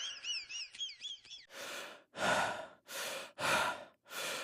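Heavy, rhythmic breathing sound effect: about five loud breaths in a row, each under half a second, starting about one and a half seconds in. Before them, a quick run of high chirps fades out.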